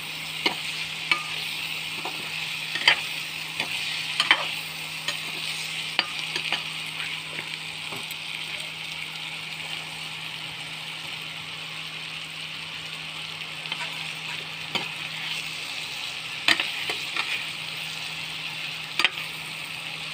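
Boiled chowmein noodles being stirred into hot oily tomato-onion masala in a metal pan with a steel spoon: a steady sizzle, with irregular clinks and scrapes of the spoon against the pan. A steady low hum runs underneath.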